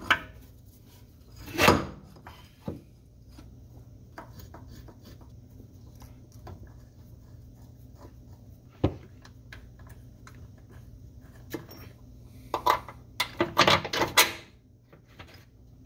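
Metal clunks and knocks as a Ford Focus torque mount is fitted against the transmission and its bolts are started by hand. There is one loud knock about two seconds in, a few light taps, and a quick run of knocks near the end, over a steady low hum.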